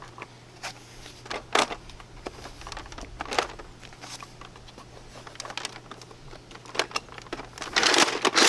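Revolver-style Nerf Mega XL foam-dart blaster being primed and fired: several sharp plastic clacks a second or two apart, with a short rustle near the end.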